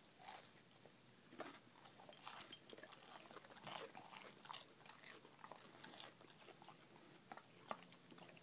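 Faint chewing and biting on a grilled cheese sandwich, a scatter of small crunches and clicks with a sharper click about two and a half seconds in.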